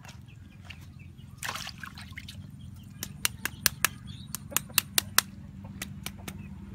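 Meat cleaver cutting chicken giblets held in the hand: a quick run of about ten sharp clicks a little before the middle, thinning to a few fainter ones, over a steady low hum.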